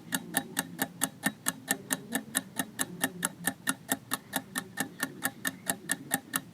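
Countdown-timer sound effect: a clock-like ticking, fast and even at about six ticks a second.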